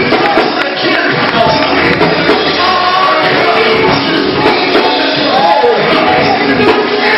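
Loud, lively church music with voices singing over dense percussion.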